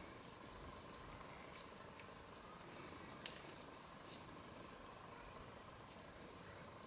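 Faint rustle of fingers knotting a piece of thin thread, with a soft tick a little over three seconds in.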